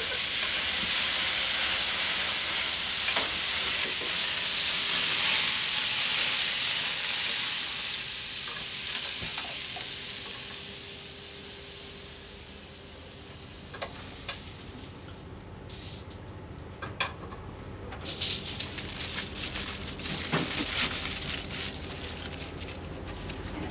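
Iwate Wagyu beef sizzling in a frying pan as it is flambéed with alcohol over a gas burner, a steady hiss that fades away about halfway through. Near the end come scattered crinkling clicks of aluminium foil as the seared meat is wrapped.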